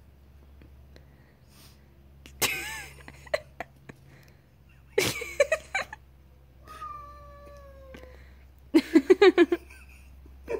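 A domestic cat meowing: short calls about two and five seconds in, then a long meow falling in pitch. Near the end comes a loud, rapid run of short pitched sounds, about ten a second.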